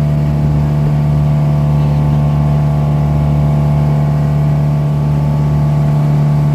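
Boat engine running at a steady speed under way: a constant, unchanging low drone.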